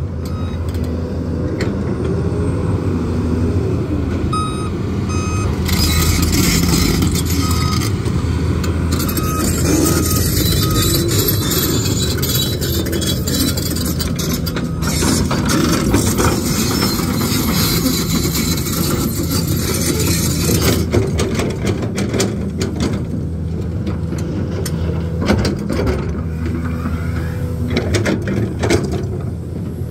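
Excavator diesel engine running steadily under load. From about four to ten seconds in, a travel alarm beeps in short repeated pulses, and a high hiss sits over the engine for much of the middle.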